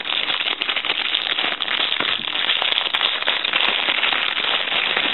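Plastic packaging bag crinkling and crackling continuously as it is handled and opened by hand.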